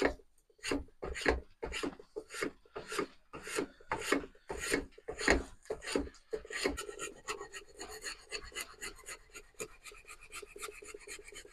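Repeated hand-tool strokes scraping and shaving wood from the end of a wooden hammer handle, taking down the high spots that a test fit in the hammer head's eye left marked. The strokes come about two a second at first, then quicker and closer together for the second half.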